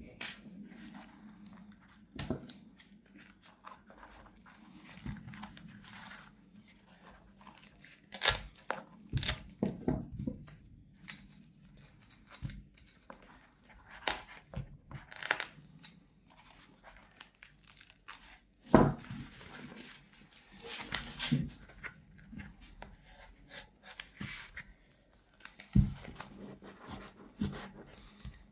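Knife cutting and prying apart the foam sole of an Onemix Light Armor running shoe: irregular tearing, scraping and crunching of foam and glued fabric, with many small clicks and a few sharp knocks.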